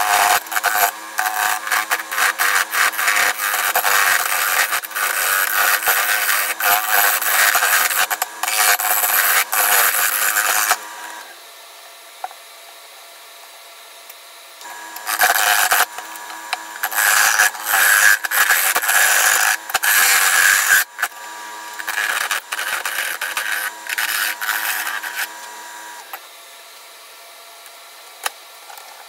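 Wood lathe spinning a bark-on log bowl blank while a turning tool cuts into it: long rough scraping passes for about the first ten seconds and again from about fifteen seconds in, with the lathe's steady motor hum between them. Near the end the cutting stops and the lathe winds down.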